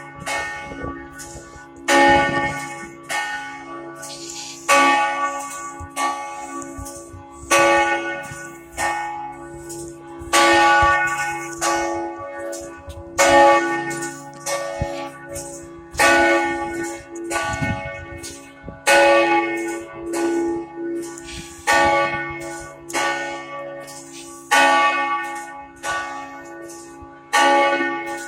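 Cathedral church bells ringing loudly, a strike about once a second, each stroke ringing on over a low, steady bell hum.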